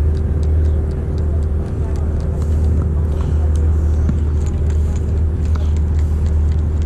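Fishing boat's engine running with a steady low drone and an even hum, with faint scattered clicks over it.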